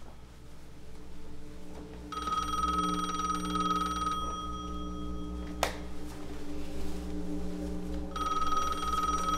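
Phone ringing: a steady electronic ring tone in long rings of about three seconds with gaps of about two to three seconds. A sharp click cuts one ring off about halfway through. A low steady drone sounds beneath.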